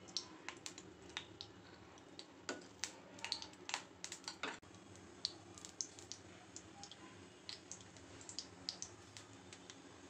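Cooking oil heating in a hot iron kadai, giving faint, irregular crackles and ticks that come thickest a few seconds in, over a low steady hum.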